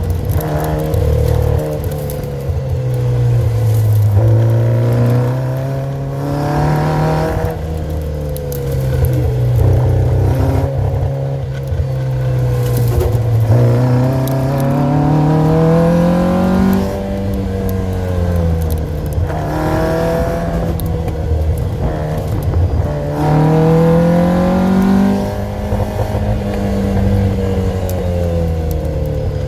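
Custom-built car's engine heard from inside the car on a dash-mounted camera, its note rising and falling several times as the driver accelerates and eases off. One long climb a little past halfway ends in a sudden drop in pitch.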